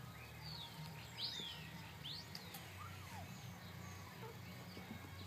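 Wild birds chirping: scattered short, falling whistles every second or so, over a low steady hum.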